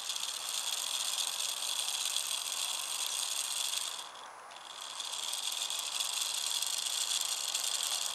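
Small electric motor spinning a model boat propeller, powered through a radio-control receiver by a solar panel. It makes a high buzzing whir for about four seconds, stops briefly, then runs again for about four seconds.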